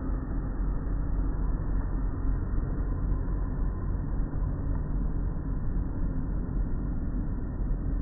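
Automatic tunnel car wash running: a steady, dense low rumble of the wash machinery with no break or change, heard muffled from inside a car.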